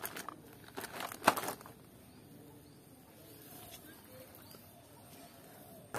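Crinkling plastic packaging and a few light knocks as a packaged toy truck is handled and set among plastic toys in a plastic bucket, over the first second and a half; then only faint outdoor background.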